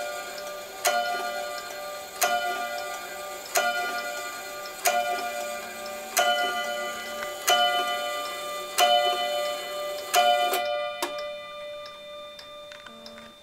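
A clock striking the hours on a bell: eight evenly spaced ringing strokes, about one every 1.3 seconds, each left to ring into the next. After the last stroke, about ten seconds in, the ringing fades and the clock's faint ticking is left.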